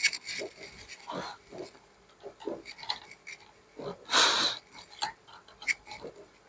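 A thin metal pry tool scraping and clicking against the plastic casing of a power bank as the case is pried open, with a louder rasp about four seconds in.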